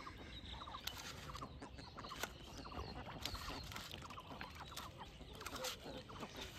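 Chickens clucking faintly in short repeated calls, with a few sharp clicks and taps.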